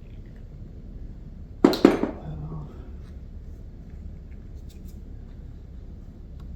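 Two sharp knocks of a hand tool against metal, close together about two seconds in, over a steady low hum.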